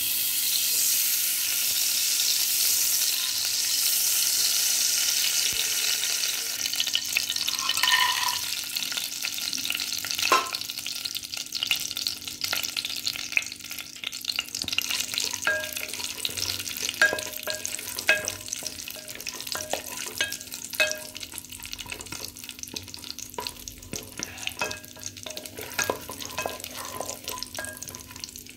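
Desi ghee sizzling in a steel pan as chopped cashews, walnuts and raisins fry in it, the first step of browning dry fruits for suji halwa. A wooden spatula stirs, scraping and tapping on the pan. The sizzle is loudest over the first several seconds; after that the spatula's clicks and knocks stand out over a softer sizzle.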